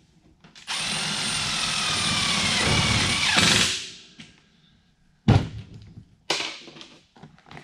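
Cordless drill running for about three seconds, driving a screw into a sheet-metal pipe joint; its motor pitch sags just before it stops as the screw seats. Two sharp knocks follow a couple of seconds later.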